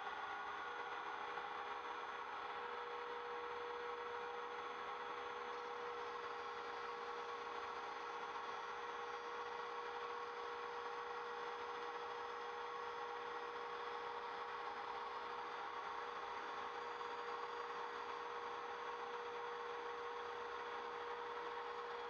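Trim router on an MPCNC Primo CNC machine running at speed with a steady high whine as its 1/8-inch single-flute end mill cuts plywood.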